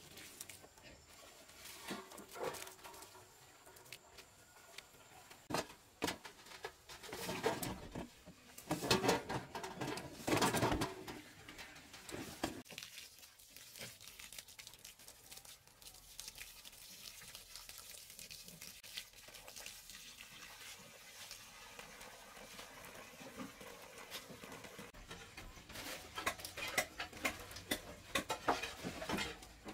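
Water splashing in bursts, with scattered knocks and clicks of handling. Near the end, a run of sharp clicks as a stainless steel sink is handled.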